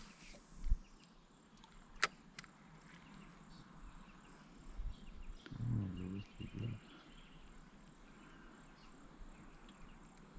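A fishing rod cast whooshing at the very start, then a low thump and a sharp click of rod and reel handling in the small boat. After that it is mostly quiet, with a brief low sound a little past the middle.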